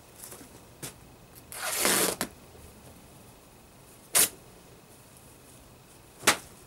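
Cloth flag being handled and crumpled: a rustling swish of fabric about two seconds in, with a few short sharp clicks around it.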